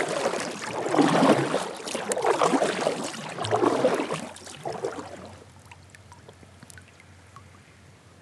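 Kayak paddle strokes swishing through the water, about one a second, for roughly the first five seconds; after that the water noise drops to a faint lapping with a few small ticks.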